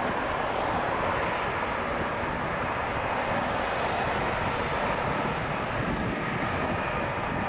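Airbus A319's IAE V2500 turbofan engines at taxi power: a steady jet rumble and hiss with a faint high whine.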